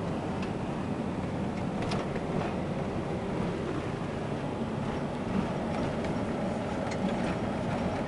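Steady engine and tyre noise of a car driving, heard from inside the cabin.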